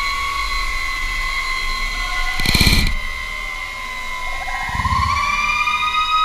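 A steady high mechanical whine that glides upward in pitch about five seconds in, with a brief loud rushing burst about two and a half seconds in.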